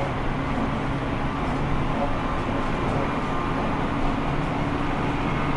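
Tsukuba Express TX1000 series electric train running at a steady speed, heard from inside the car: an even rail and running noise with faint, steady motor tones.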